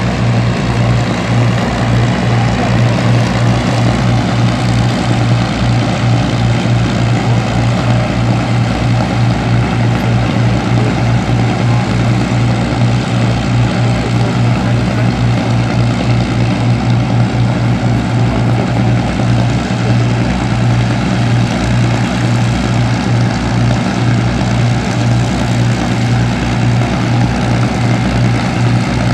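Avro Lancaster bomber's piston engines and propellers running in a loud, steady, deep drone that holds the same pitch and level throughout.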